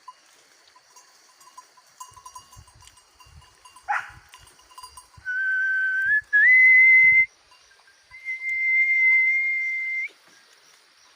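A man whistling to call up the wind. A short upward-sliding whistle comes about four seconds in, then three long held notes, each a step higher or level. The middle note is the loudest, and the last is the longest, lifting slightly at its end.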